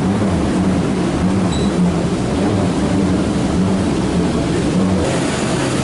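Steady, loud drone of airport ground machinery with a low hum underneath, heard inside a jet bridge beside a parked airliner. The tone shifts slightly about five seconds in.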